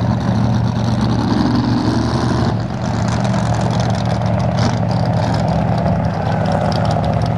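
Jet sprint boat's big engine idling, a loud, even low drone that holds a steady pitch.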